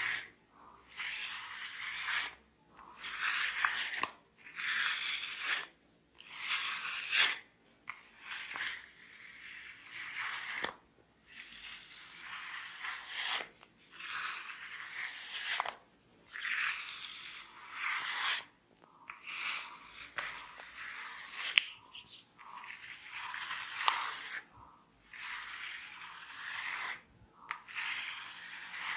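Hair being rubbed and twisted between the fingers against the scalp, making a crackling, scratchy sound in a dozen or so strokes of one to two seconds each, with short pauses between them. There is one sharper, louder click a little past two-thirds of the way through.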